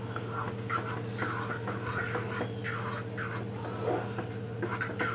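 A utensil stirring wet Maggi noodles in a black non-stick pan, scraping and sloshing irregularly, over a steady low hum.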